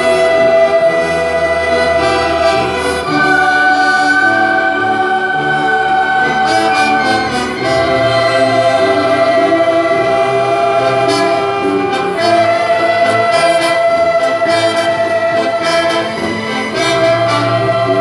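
Symphony orchestra with choir performing: long held chords that change about every four and a half seconds.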